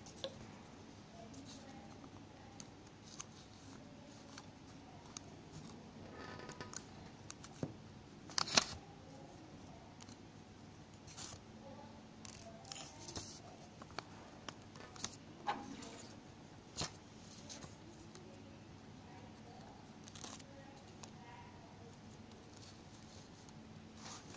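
Faint, irregular clicks and taps of steel dissecting pins and forceps against a wax plate and glass petri dish as an insect specimen is pinned open. The sharpest click comes about eight seconds in.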